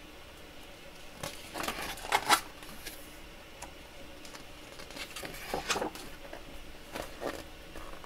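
Pages of a large picture book being turned by hand: paper swishing and rustling in three bursts, the loudest about two seconds in.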